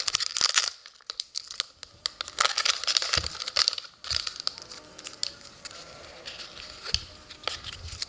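Foil wrapper of a trading-card pack crinkling and tearing as it is peeled away from the cards, loudest over the first four seconds; after that, softer handling of the cards with a few light clicks.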